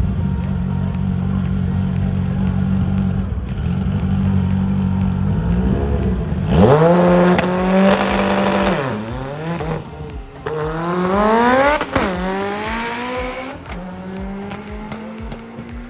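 A drag-racing car launches and accelerates hard. Its engine pitch climbs and drops back at each of several gear shifts, then the car settles lower and fades as it pulls away. Before the launch there is a steady engine idle at the line.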